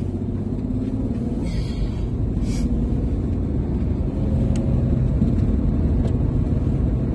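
Moving car heard from inside the cabin: a steady low rumble of engine and tyres on the road, growing slightly louder about four seconds in, with a brief hiss early on and two faint clicks later.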